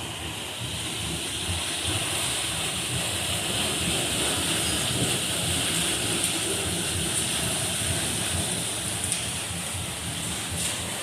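Steady rush of running water at the furnace's water wheel, the wheel that drove the air blast for the iron furnace.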